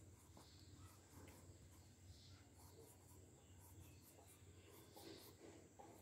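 Near silence: faint pencil strokes scratching on paper over a low steady hum.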